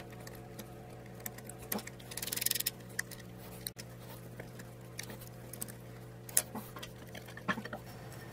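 Scattered light metal clicks and clinks of hand tools and loose steel fittings as the end-cap bolts are taken out of a Napier Sabre engine mount on a steel bench, with a short scraping noise about two seconds in. A steady low hum runs underneath.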